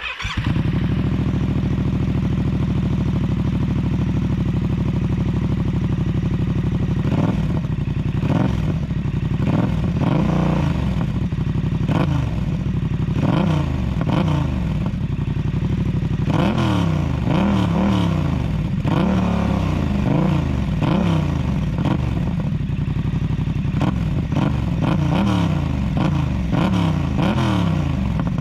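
Yamaha MT-07's 689 cc parallel-twin engine running through an SC Project CR-T exhaust with the dB killer fitted. It idles steadily for about seven seconds, then is revved over and over in quick rising and falling blips.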